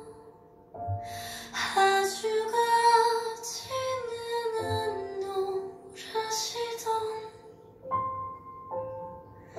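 Recorded music playing through DIY two-way hi-fi loudspeakers in a room: a woman singing a ballad over instrumental accompaniment. The music dips briefly at the start, then the voice comes back in.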